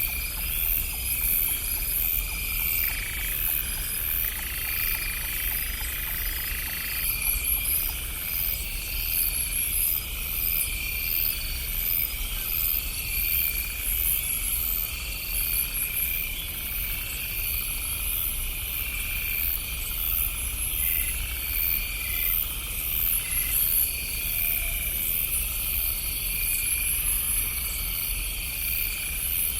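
Night chorus of insects and frogs: steady, rapidly pulsing trills high up, with a held call from about 3 to 7 seconds in and a few short calls around two-thirds of the way through, over a faint low rumble.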